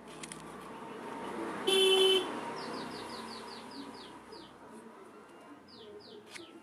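A vehicle passing by, sounding its horn once for about half a second about two seconds in; this horn is the loudest sound. After it a bird calls a quick run of short falling notes, about four a second, and starts a second run near the end.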